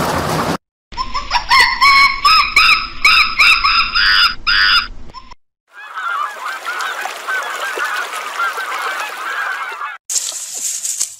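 Geese honking, about ten loud calls in quick succession, then after a brief break a flock's chorus of many overlapping smaller calls.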